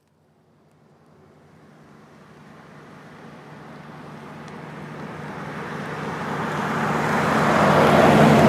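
A car approaching from far off, its engine hum and tyre noise growing steadily louder over several seconds until it is nearly level with the listener at the end, as in a drive-by.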